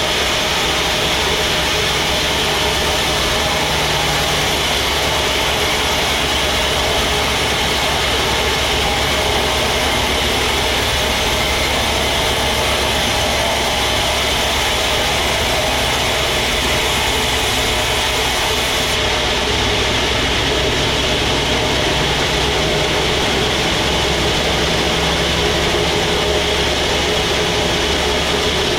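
Sawmill machinery running with a steady, loud engine-like drone under a constant mechanical noise, as a teak log is sawn into planks.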